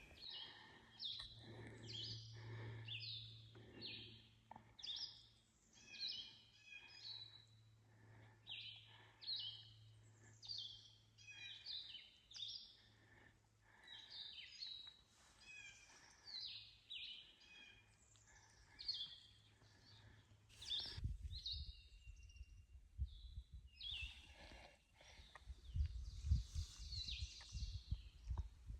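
Songbirds singing in the forest: many quick, falling high chirps, one after another. About three quarters of the way through, low thumps of footsteps on the trail come in under thinner birdsong.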